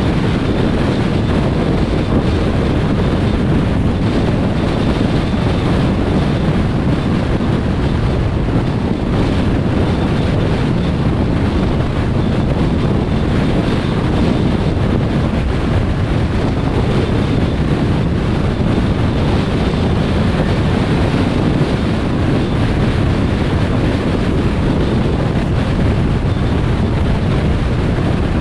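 Steady rumble of road and wind noise from a car driving on a motorway, even and unbroken throughout.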